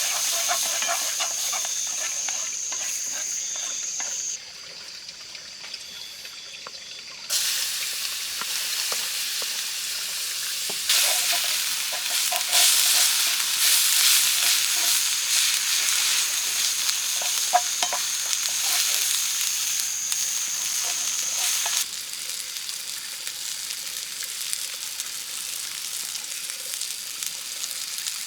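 Food sizzling in a pan over a campfire, with scattered clicks of a utensil. The sizzle jumps abruptly in loudness several times.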